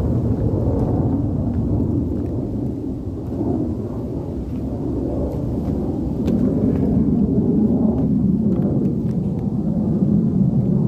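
Wind buffeting the camera's microphone: a steady low rumble that grows louder in the second half, with a few faint ticks.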